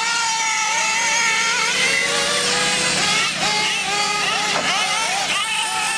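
Several nitro-powered RC late model cars' small glow engines buzzing at once, each note rising and falling as the cars race laps of a dirt oval.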